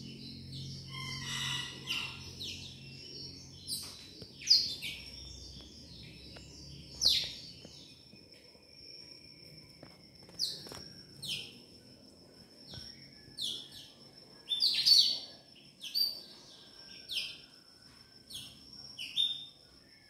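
Caged blackthroats (black-throated seedeaters) giving short, sharp, high chirps, one every second or so, some in quick pairs. A thin steady high tone runs beneath them from about a third of the way in, and a low hum fades out in the first few seconds.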